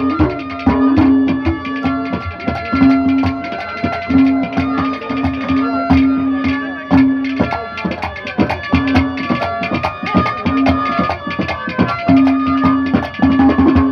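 Instrumental Haryanvi ragni accompaniment: tabla-style hand drums keep up a fast, steady rhythm under a melody instrument, with a low held note that starts and stops every second or so.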